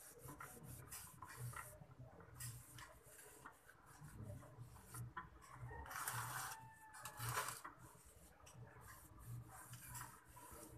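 Fingers working dry potting mix in a shallow metal bonsai pot: faint, irregular gritty scratching and small clicks, with a louder rush of noise for a second or so past the middle.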